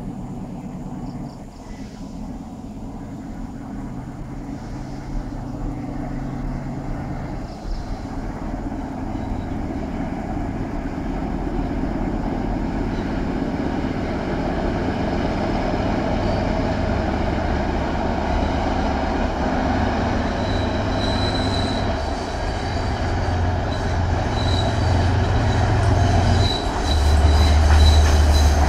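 A Sri Lanka Railways W1 class diesel locomotive approaching, hauling a disabled S8 power set, its engine drone growing steadily louder. A faint, broken high squeal, typical of wheels on a curve, comes in over the last several seconds. About two seconds before the end the engine note deepens and gets louder.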